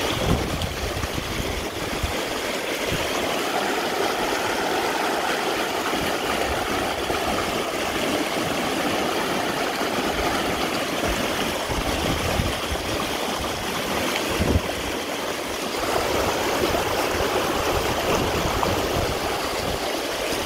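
Shallow river rushing steadily over rocks and small rapids, with a low, irregular rumble underneath.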